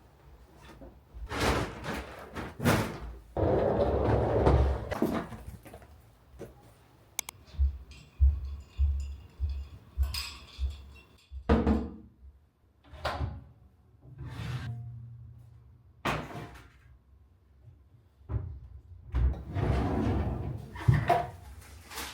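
Irregular knocks, thuds and rustling, as of objects being handled and set down in a room.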